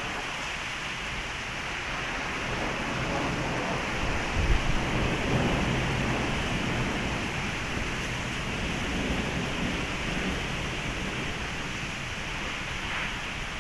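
Heavy rain pouring steadily. A brief low thump comes about four and a half seconds in, followed by a short low swell.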